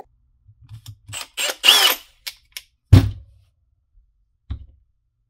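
Handling of a Milwaukee M18 FUEL hammer drill's plastic housing and parts: a run of clicks and rattles and a brief scraping noise, then a loud dull thump about three seconds in and a smaller thump about a second and a half later.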